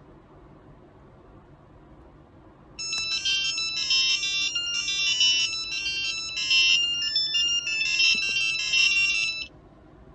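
Piezo buzzer playing a quick, ringtone-like electronic melody of shrill beeping notes, starting about three seconds in and stopping abruptly near the end.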